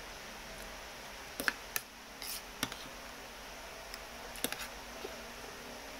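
Eating sounds: a few short, sharp clicks and smacks, bunched about a second and a half in and again around four and a half seconds, over steady room hiss.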